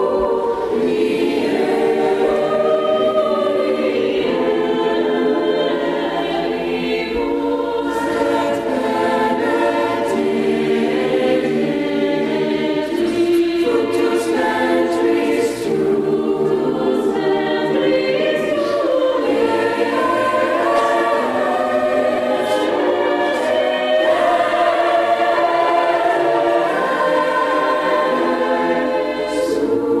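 Mixed choir of young men and women singing, holding long chords that shift slowly from one to the next.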